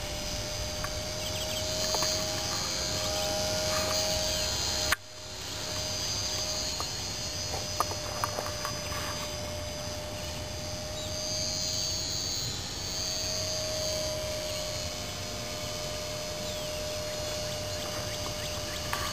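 Electric motor and propeller of a Carl Goldberg Husky 400 RC park-flier plane in flight: a steady whine that swells and fades as the plane flies around, over a constant background noise. A sharp click about five seconds in is followed by a sudden dip in the noise.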